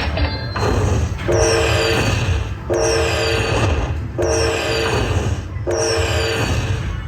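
Buffalo slot machine playing its looping bonus-win celebration sound: a held horn-like chord with falling chimes, repeating about every second and a half.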